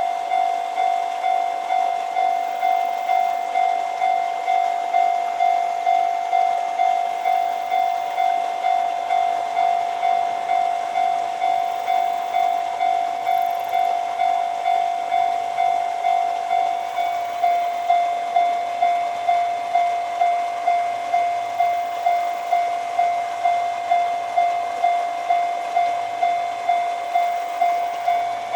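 Japanese level-crossing alarm ringing: an electronic crossing bell sounding its repeated ding-ding strokes, about one and a half a second, warning that a train is approaching.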